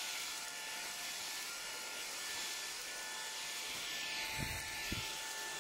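Dreame cordless stick vacuum running steadily: an even suction hiss with a thin motor whine, and two soft low thumps near the end.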